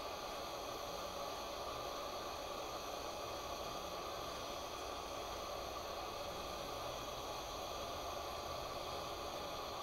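Steady hiss of a lit glassworking bench torch flame heating the glass joint.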